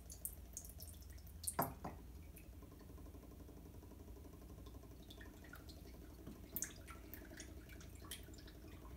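Teriyaki sauce trickling and dripping from a glass bottle into a ceramic bowl, faint, with a couple of light knocks: one about a second and a half in, another past the middle.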